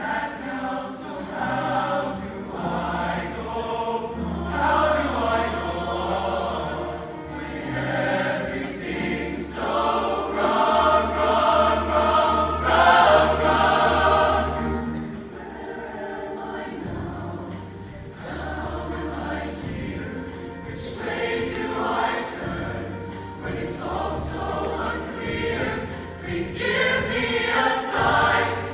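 Mixed-voice show choir singing a song over steady low bass notes, growing louder about ten seconds in and then softer.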